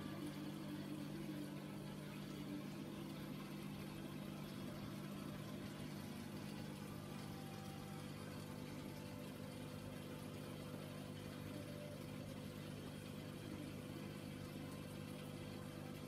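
Aquarium pump humming steadily: a low, even mechanical hum with a faint hiss over it.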